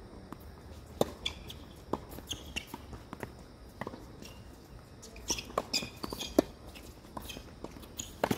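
Tennis rally: sharp pops of the ball off racket strings and ball bounces on the court at irregular spacing, with footsteps between them; the loudest hit comes about six seconds in.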